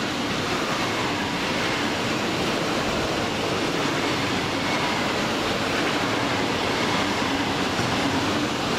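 High-speed ICE made up of two coupled ICE 4 trainsets running through a station without stopping: a steady rush of wheel and rolling noise.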